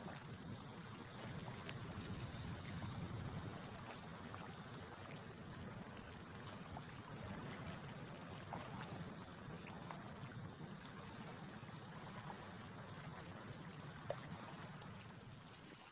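Small waves lapping over a steady low rumble, with a faint high steady hiss. A few faint ticks, and one sharp click about fourteen seconds in.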